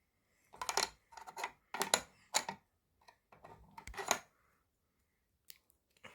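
Bursts of sharp clicking and rattling for about four seconds, then a single click near the end. No alarm tone sounds.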